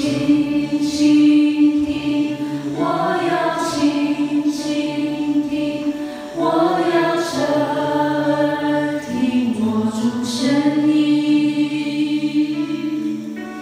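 A small mixed group of men and women singing a slow Chinese worship song in long held notes, amplified through microphones and accompanied by sustained electronic keyboard chords.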